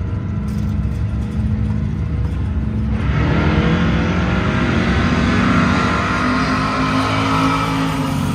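Drag-racing engines running steadily, then launching about three seconds in: the noise jumps and the engine pitch climbs as the vehicles accelerate down the strip.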